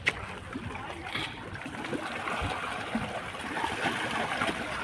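Water trickling and sloshing in a metal basin of fish feed, with a sharp click near the start and a couple of soft low knocks about halfway.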